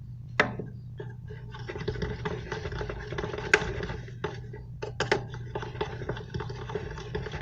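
Slime being stirred as the activator is worked in: a run of sticky, crackling squishes from about two seconds in, with a few sharp clicks, over a steady low hum.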